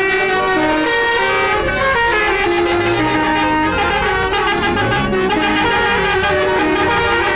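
Tour bus basuri musical horn playing a melody, sustained reedy notes stepping from pitch to pitch without a break.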